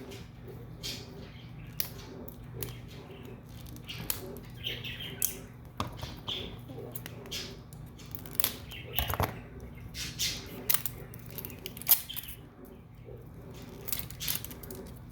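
Plastic toy-capsule packaging being handled and opened by hand: scattered sharp clicks and short crinkling rustles over a steady low hum.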